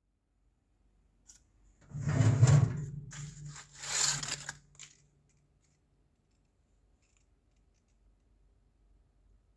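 Crumpled baking paper crinkling and rustling in a few bursts as it is pulled off a metal roasting tray in the oven, over about three seconds, loudest at the start.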